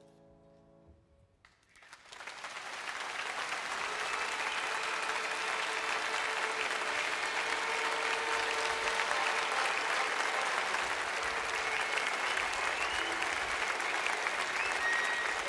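The last piano chord of the piece dies away. After a second's lull a large outdoor audience breaks into applause, which swells over the next two seconds and then holds steady.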